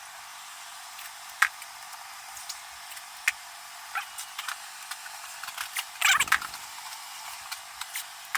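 Scattered light metallic clicks and taps of hand tools and bolt hardware being handled, with a louder clatter about six seconds in.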